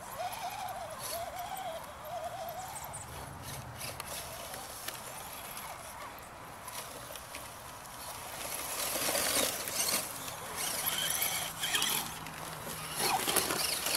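Axial SCX10 radio-controlled crawler trucks driving down through long grass: electric drivetrain whine and tyres and body brushing the grass, getting louder from about eight seconds in as they come toward the microphone. A wavering animal call is heard in the first few seconds.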